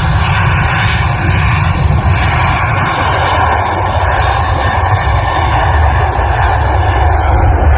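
Delta Boeing 737-900's CFM56-7B turbofan engines running loud and steady at takeoff power, a dense jet roar with a deep rumble underneath.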